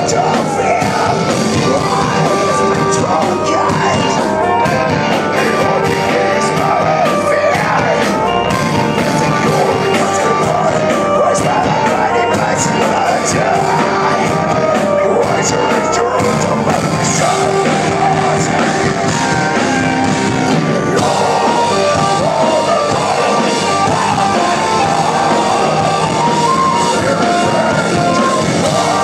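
Live folk-metal band playing loud and steadily, with drums, guitars, fiddle and hurdy-gurdy under singing, heard from within the crowd.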